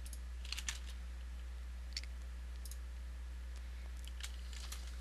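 Scattered computer mouse clicks and key presses: a quick group of three about half a second in, then single clicks every second or so. A steady low electrical hum runs underneath.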